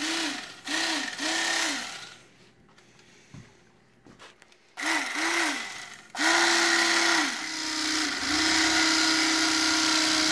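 Electric fillet knife's motor whining in short on-off bursts: three in the first two seconds and two more around five seconds in. From about six seconds in it runs steadily as the blade cuts along the backbone of a skinned catfish.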